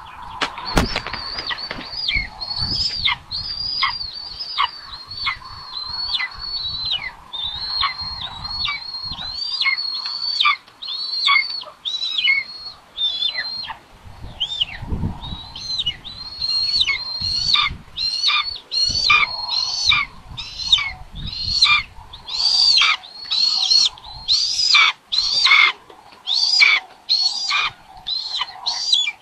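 Raptor nestlings in the nest giving a long series of high, down-slurred begging calls while being fed, about one a second at first, coming faster and louder in the second half. A few low thumps of movement in the nest sticks, about a second in and near the middle.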